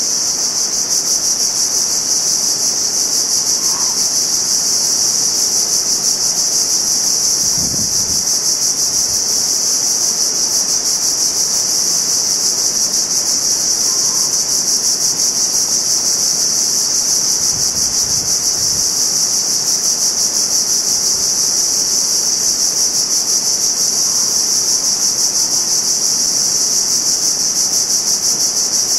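Loud, steady insect chorus of tropical forest: a dense high-pitched buzz that never lets up.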